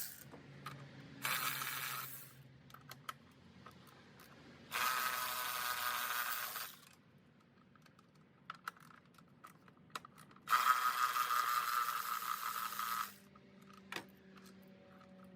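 Cordless power tool spinning in three bursts, the second and third longer than the first, with small clicks and taps of the tool and bolts between them; its battery is low.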